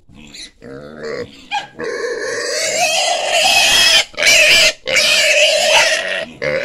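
Piglet squealing while held and lifted by hand, a high-pitched distress squeal at being handled. It is quieter at first, then loud and continuous from about two seconds in, breaking off briefly twice.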